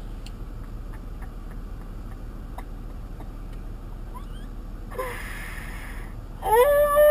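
A woman crying in distress: a short sobbing breath about five seconds in, then a loud, high, drawn-out wail near the end. Under it runs the low steady hum of the car cabin.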